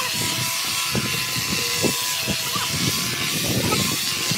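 Electric angle grinder grinding the edge of granite cladding: a steady motor whine over a harsh grinding hiss, with uneven scraping as the disc works along the stone.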